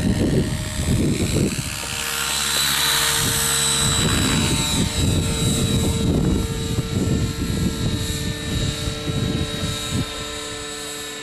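Align T-Rex 700E electric RC helicopter in flight: a steady whine from the electric motor and drivetrain under the whoosh of the main rotor blades, which swells about two to four seconds in.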